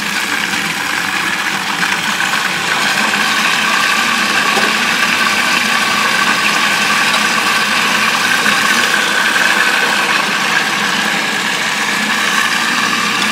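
Cuisinart food processor motor running steadily, puréeing a wet tofu-and-blueberry mixture in its bowl. The sound starts abruptly and cuts off abruptly at the end.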